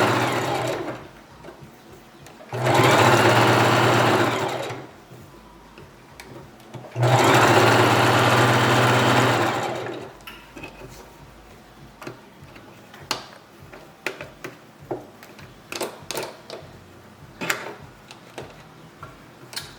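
Electric sewing machine stitching a wig in three runs of about two to three seconds each, stopping between runs. After that come light scattered clicks and taps.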